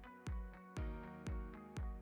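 Background music with a steady beat: a deep kick drum about twice a second under sustained synth chords.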